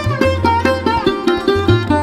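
Instrumental background music: a plucked string instrument plays a quick Indian-style melody with bending notes over a steady low bass.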